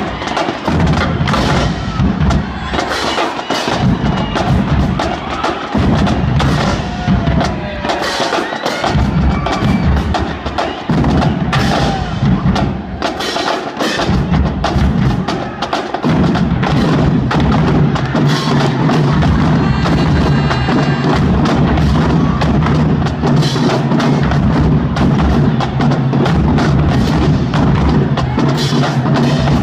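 A school drumline playing a cadence: snare drums and bass drums striking in a fast, dense rhythm. The low drums become steadier and fuller about halfway through.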